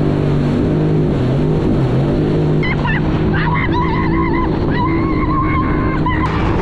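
Jet ski engine running steadily on the water, with a constant rush of wind and water noise.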